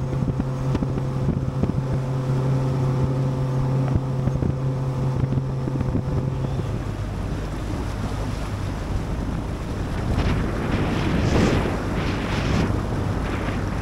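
Ranger RT198P bass boat running across a lake: a steady outboard motor hum under wind on the microphone and water rushing past the hull. About seven seconds in, the motor's note drops lower, and near the end there are louder surges of splashing spray and water.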